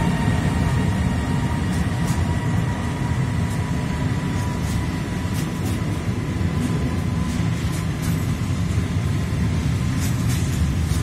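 Intermodal freight train wagons loaded with containers and trailers rolling past at speed: a steady heavy rumble of wheels on rails, with scattered sharp clicks and a faint steady whine.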